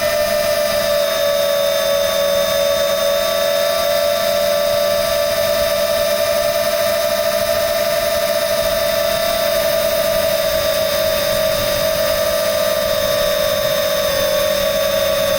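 Electric motors and propellers of an FPV multirotor drone, heard from the camera on board: a loud, steady high whine with the rush of air, its pitch sagging slightly near the end.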